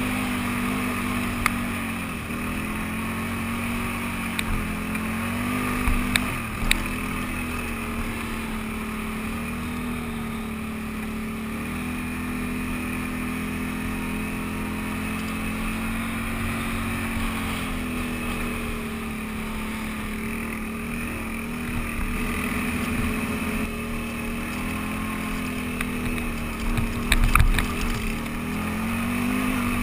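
Can-Am Renegade 800 ATV's V-twin engine running at trail speed, its pitch easing off and picking up again several times as the throttle changes. A few sharp knocks about two seconds before the end.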